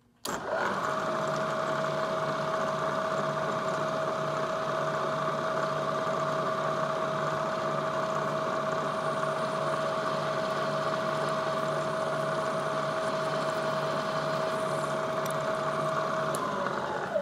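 Drill press motor starting up, then running with a steady whine and hum while a twist drill of about 0.193 inch bores a through hole in aluminum plate. The motor is switched off and winds down near the end.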